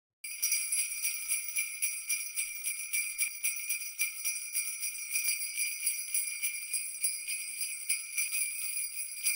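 Sleigh bells jingling, shaken continuously at a quick, even pace of about three or four shakes a second, with nothing lower-pitched underneath; it starts a moment in.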